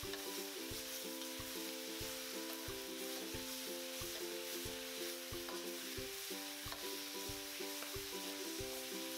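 Beef and scallions sizzling in a hot iron wok as a metal spatula stirs and scrapes them, over background music with a steady beat.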